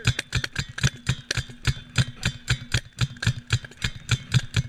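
Paintball marker firing rapidly: a fast run of sharp pops, several a second, with no break.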